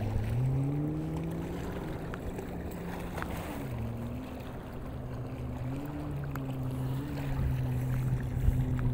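An engine droning steadily at a low pitch, rising a little in the first second and wavering slightly later on.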